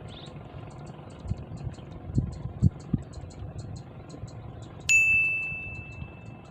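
A single bright metallic ding, struck once about five seconds in and ringing down over about a second and a half. A few dull knocks come before it.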